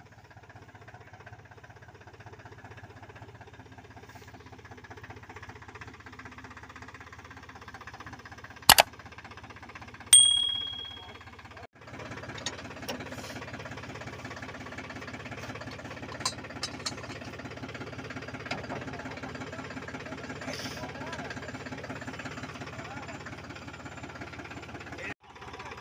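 Powertrac Euro 47 tractor's three-cylinder diesel engine idling steadily, louder from about twelve seconds in. About nine seconds in there is a sharp metal clank, and a second later a ringing metal strike that fades away over about a second.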